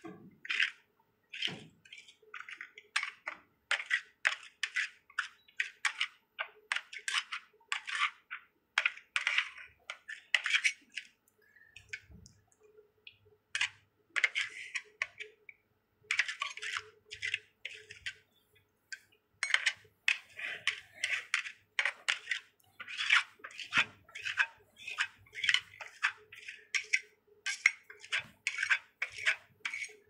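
Metal spatulas scraping a thin frozen sheet of ice cream across a stainless-steel cold plate for rolled ice cream. Short, crisp scrapes come several a second, with brief pauses about 12 and 18 seconds in.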